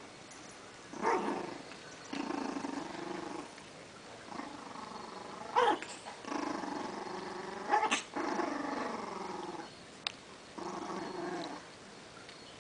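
Toy poodle puppy growling, a string of about six growls each a second or so long, with two short sharp barks near the middle. The growls sound like a much bigger dog's.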